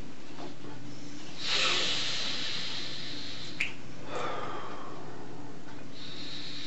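A man breathing heavily over a steady low room hum, with a loud breath about a second and a half in, a short click a couple of seconds later, and another softer breath after it.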